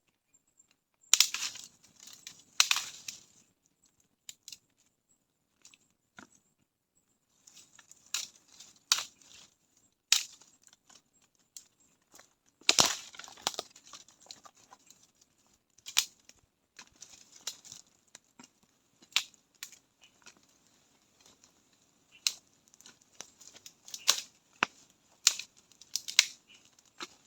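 Irregular sharp crunches and cracks, a few loud ones with softer crackling between them, like dry material being crushed or broken by hand.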